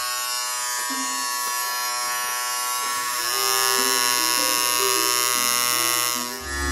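Coil tattoo machine buzzing steadily, getting louder about three seconds in and dipping briefly near the end.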